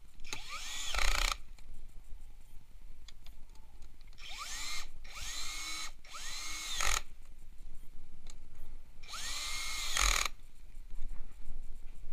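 Cordless drill with a socket driving bolts tight: four short runs, each a whine that rises quickly in pitch as the motor spins up and then cuts off.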